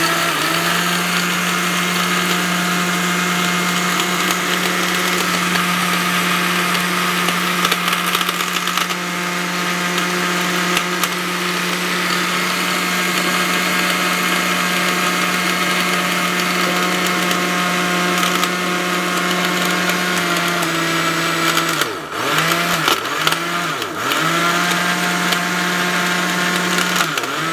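Orange-brand 1000-watt copper-wound mixer grinder running at full speed, grinding dry turmeric to powder in its small stainless steel jar, a steady motor hum. About 21 seconds in it slows and is switched off and on in a few short pulses, then runs steadily again and stops at the end.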